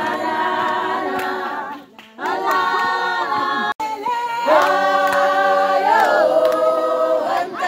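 A group of voices singing in harmony without instruments, holding long notes, with short breaks about two seconds in and again near four seconds.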